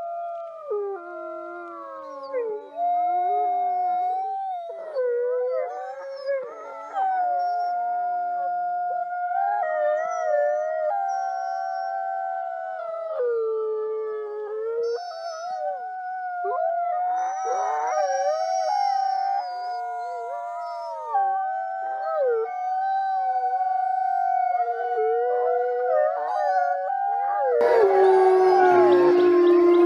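A pack of wolves howling in chorus: long held howls overlap, with other voices gliding up and down above and below them. Near the end the sound shifts to a louder, harsher recording of howling.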